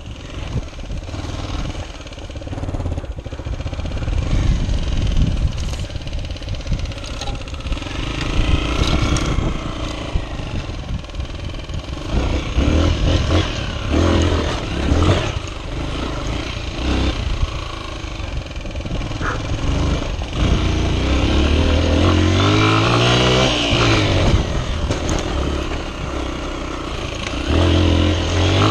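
Honda XR 125's single-cylinder four-stroke engine being ridden off-road, revving up and easing off repeatedly, with the pitch climbing through the gears several times in the second half. Rattles and wind noise run underneath.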